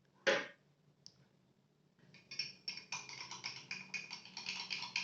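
A teaspoon stirring a duck egg yolk and ground pepper in a glass, clinking rapidly against the glass from about two seconds in. A brief noise sounds just after the start.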